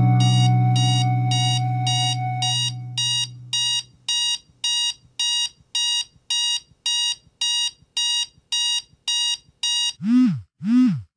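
Digital alarm clock beeping: a steady run of short electronic beeps, about two a second. For the first few seconds a low held tone sounds under the beeps and then fades out. Near the end the beeps give way to four rising-and-falling electronic tones.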